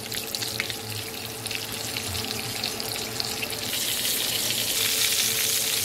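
Cornmeal-dredged whiting fillets frying in hot oil in a pan: a steady sizzle that grows louder and brighter a little under four seconds in. A faint steady hum runs underneath.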